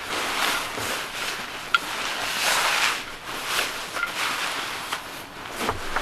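Rustling and swishing of a down sleeping bag's nylon shell as it is gathered and moved, in irregular swells. A single light metallic clink about two seconds in.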